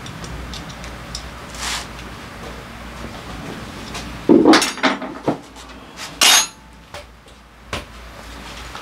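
Metal hand tools and sockets clinking and clattering against the steel lift table as they are handled, with several sharp clanks in the second half.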